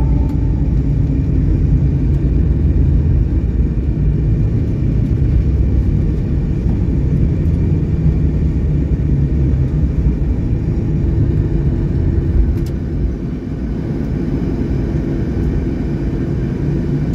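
Airliner cabin noise during the landing roll: a steady, heavy low rumble from the engines and the aircraft rolling down the runway, easing a little about thirteen seconds in.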